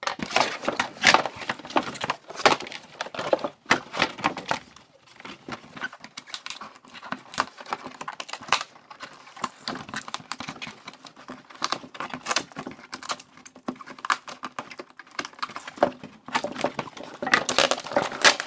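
Cardboard packaging and tape being handled and pulled apart by hand: irregular rustling, scraping and crinkling with small clicks, busiest in the first few seconds and again near the end.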